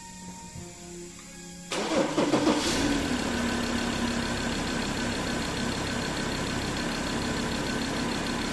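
Mazda BT-50's 3.2-litre five-cylinder diesel engine starts about two seconds in, loudest as it catches, then settles into a steady idle. It now starts and runs after its camshaft position sensor fault was repaired.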